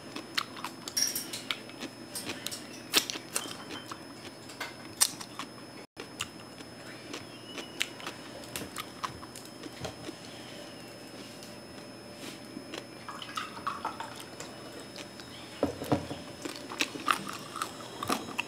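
Close-miked eating sounds: crunching and chewing of crispy deep-fried pig's head skin, with irregular sharp crackles as the crackling skin is torn apart by hand.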